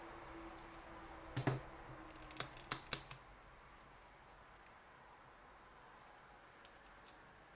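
A multimeter and its test leads being handled on a workbench: a soft knock, then three sharp plastic clicks in quick succession, and a few faint clicks later.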